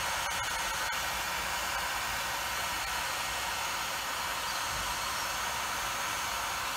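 Electric heat gun running steadily, an even hiss of its fan and hot air, played on the compressor's wheel to expand it on the shaft so a puller can draw it off.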